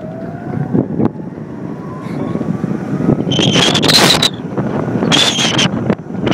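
Chairlift ride heard from a moving chair: steady wind and running noise, with a faint rising whine over the first few seconds. Two short loud bursts of hiss with a high squeal come about three and five seconds in.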